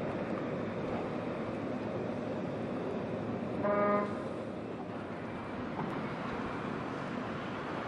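A single short horn toot about halfway through, under a steady background of outdoor noise.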